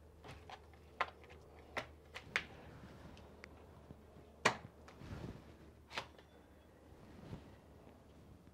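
Scattered sharp clicks and knocks, about seven spread irregularly and the loudest about four and a half seconds in, from cutting chilacayote squash with a knife and setting the chunks into a copper cazo with a little water.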